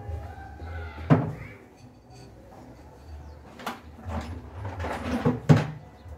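Bundle of wooden slats set down and shifted on a wooden cabinet top: a few hollow wooden knocks and clatters, the loudest about a second in and another near the end.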